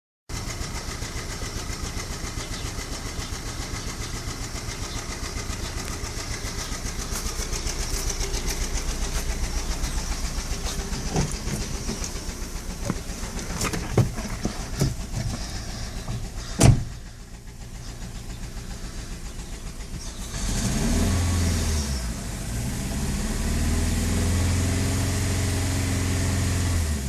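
VW Fox 1.6 four-cylinder engine idling with an evenly pulsing beat. A few sharp clicks and one loud knock come about two-thirds through, then the engine is revved up. This is the engine noise the owner reports, which the dealer put down to the spark plugs.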